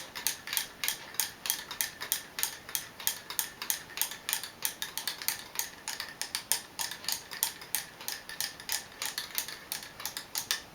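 Spoon stirring warm milk mixed with Borjomi mineral water in a mug, clinking against the sides in a quick, even rhythm of about five to six clicks a second; the clinking stops near the end.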